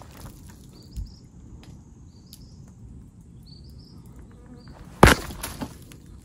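A tree trunk kicked to shake stag beetles down from it: a light thump about a second in, then a hard kick about five seconds in, followed by a couple of lighter knocks. Faint short high chirps sound in the background.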